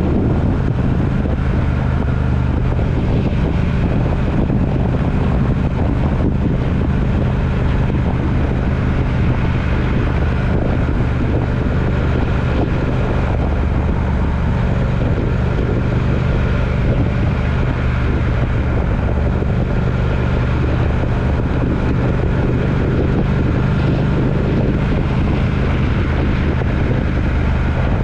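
A vehicle travelling steadily on the road: a constant low engine drone with wind noise.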